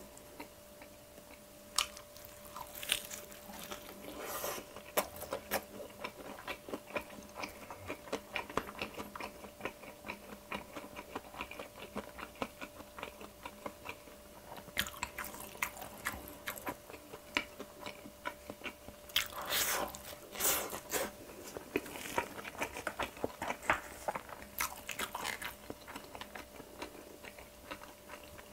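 Close-miked biting and chewing of crispy pan-fried Korean potato pancake (gamja-jeon): a dense run of irregular crisp crackles and wet chewing, with louder bursts of crunching now and then.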